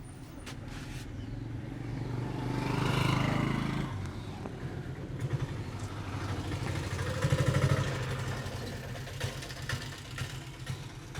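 Motor vehicle engines running, swelling louder twice as they pass, over a steady low hum, with a few sharp ticks near the end.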